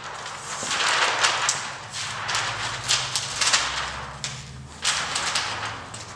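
A large sheet of full blue (CTB) lighting gel crinkling and rustling as it is handled and laid over the front of a softbox, in a dense run of crisp plastic crackles.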